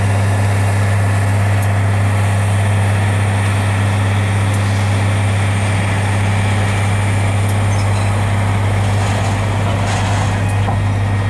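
Diesel engines of a Loram rail grinder train running with a steady low hum as the train rolls slowly past.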